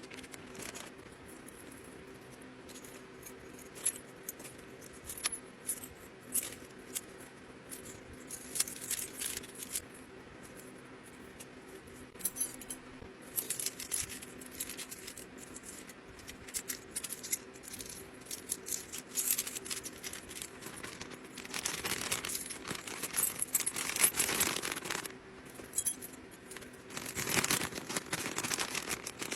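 Small hard items clinking and rattling as they are handled, in scattered sharp clicks, with plastic packaging rustling and crinkling in two longer stretches in the second half.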